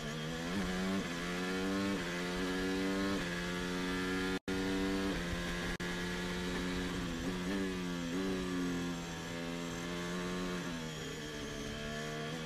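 Formula 1 car engine accelerating hard through the gears, its pitch climbing and dropping sharply at each quick upshift, then falling as the car slows for a corner before it accelerates again. The sound cuts out for an instant about four and a half seconds in.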